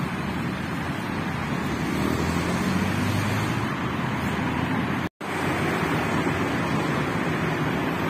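Steady city road traffic noise, cars driving past, with a heavier engine rumble swelling and fading a couple of seconds in. The sound cuts out completely for an instant about five seconds in, then the same traffic noise carries on.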